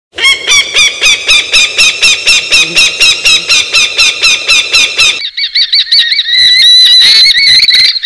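Falcon calling: a rapid run of evenly repeated notes, about four a second. From about five seconds in it turns into a continuous wavering chatter.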